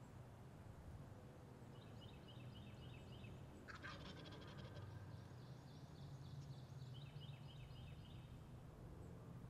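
Eastern wild turkey gobblers gobbling at a distance: several faint rattling gobbles, one after another, the strongest about four seconds in.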